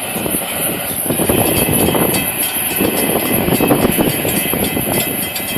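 Freight cars of a Florida East Coast Railway train rolling past at a grade crossing: a steady, noisy rumble and clatter of steel wheels on the rails.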